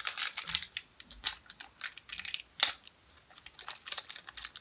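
Crinkling and crackling of a small wrapper being worked open by hand to get at a tiny Shopkins toy, with one sharper snap a little past halfway.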